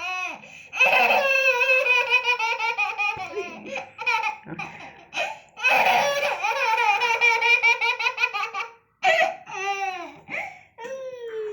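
A baby laughing hard, in two long bouts of rapid, rippling laughter a few seconds each, then a few shorter laughs near the end.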